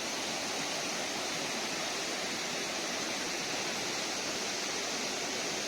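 Small waterfall rushing steadily, a constant hiss of falling water, its flow swollen by rain.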